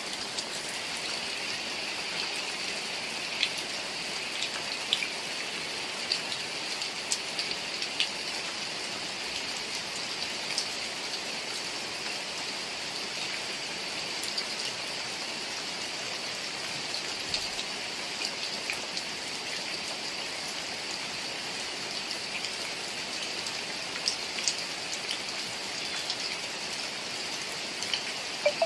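Heavy rain falling steadily, with scattered sharper drop hits and taps.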